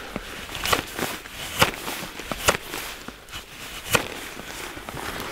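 Knife shaving a dry cedar bow drill spindle: several sharp scraping strokes at uneven intervals, each one taking off a curl of wood to straighten the spindle's curve.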